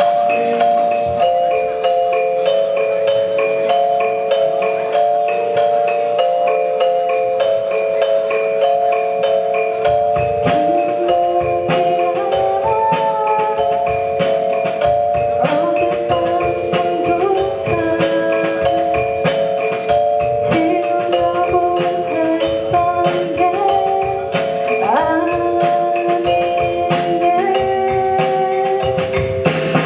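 Amateur rock band playing the intro of a song live: sustained chords over steady ticking percussion, with a bass line coming in about ten seconds in.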